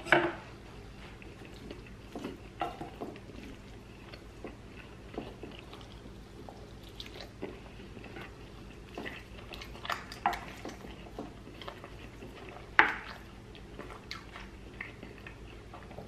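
Scattered light taps and clinks of kitchen dishes and utensils, with a sharper knock near the end, over a faint steady low hum.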